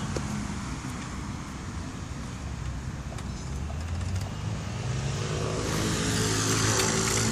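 Road traffic: a motor vehicle's engine running with a steady low hum, and a car driving past whose rushing noise swells to its loudest near the end.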